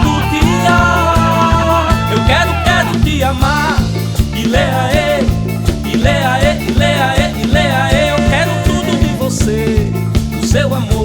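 Instrumental passage of an upbeat Brazilian band song: a steady, driving bass-and-drum beat under a lead melody of held notes that then bends and wavers.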